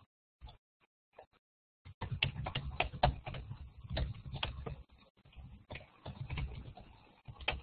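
Computer keyboard typing: a few scattered keystrokes, then a fast, continuous run of key clicks from about two seconds in.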